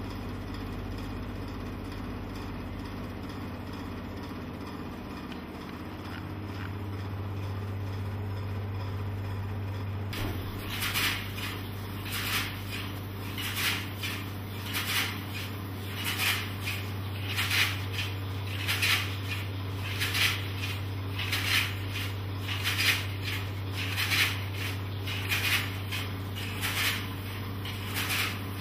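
Film scanning machine running with a steady low hum. From about ten seconds in, a short hissing swish repeats evenly, roughly every second and a quarter.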